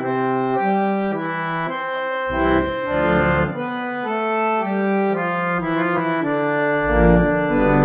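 Restored circa-1917 Estey Style O reed organ being played in full chords that change about once a second, with deep bass notes coming in about two seconds in and again about seven seconds in.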